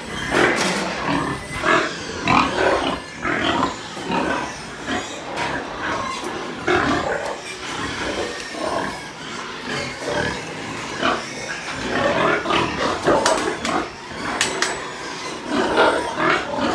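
Pigs in metal pens grunting and squealing over and over in short, irregular calls, with a few sharp metal clanks in the second half.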